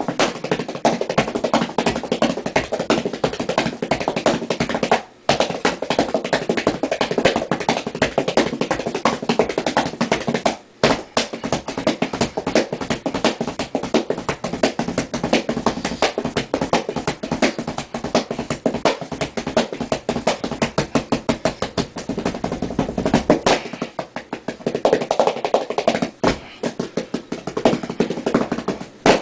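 Hands drumming fast on a flat cardboard box: dense rolls of taps and hits, with two short breaks about five and eleven seconds in.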